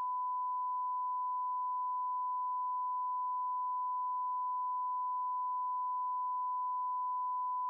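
A single steady 1 kHz sine tone, unbroken and even in level. In this heavily redacted declassified film it stands in for soundtrack that was blanked out.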